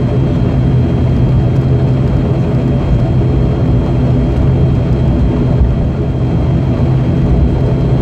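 Steady drone of an ATR72-600's Pratt & Whitney PW127 turboprop engine and propeller, heard from inside the cabin right beside the engine. The engine is at low taxi power, with a strong, even low hum.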